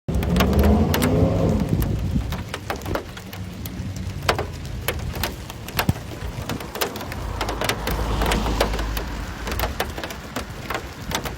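Pea-sized hailstones hitting hard surfaces in many sharp, irregular ticks over a steady patter. A low rumble underneath is strongest in the first two seconds and swells again near the end.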